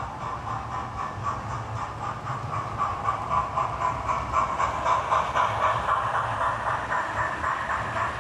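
Model railway train running past close by: the locomotive's small electric motor whining steadily while the wheels click rapidly over the rail joints, getting louder about three seconds in as it nears.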